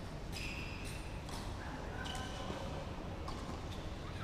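Tennis being played on a hard court: a few sharp knocks of the ball off rackets and the court surface, spaced about a second or more apart, with a few short high squeaks, over a steady low rumble.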